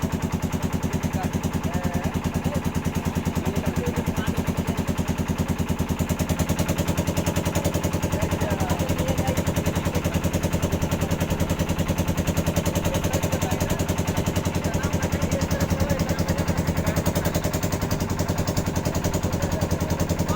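An engine chugging steadily with a rapid, even beat. Its tone shifts slightly about six and a half seconds in.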